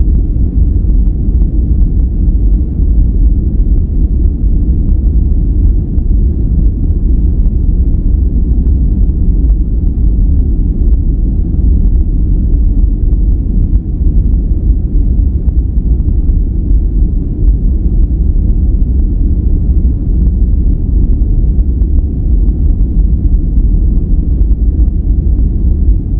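A steady, unbroken, low rumbling noise track of the kind played for sleep. It is deep and muffled, with most of its weight in the bass and almost no hiss, nearer brown noise than true white noise.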